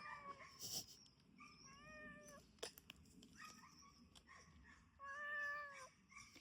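Domestic cat meowing softly about four times, short arched calls with the longest near the end.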